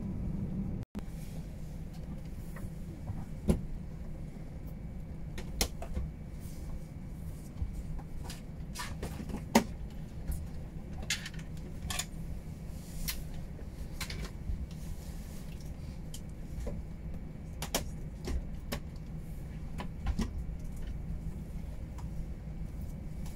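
Steady low hum inside the cabin of an Airbus A320 standing on the ground, with scattered sharp clicks and knocks in the cabin, the loudest about three and a half and nine and a half seconds in.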